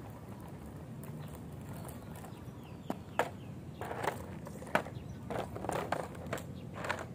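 Caster board's small wheels rolling over rough asphalt, then from about three seconds in a string of sharp knocks, clatters and scrapes as the board tips over and hits the pavement and sneakers step on the path.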